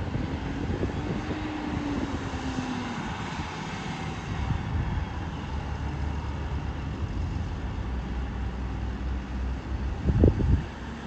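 Tractor and wheel loader engines running steadily at a distance, with wind gusting on the microphone about ten seconds in.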